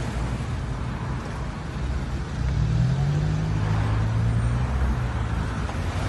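An engine running at a steady low pitch, rising a little about two and a half seconds in and then holding.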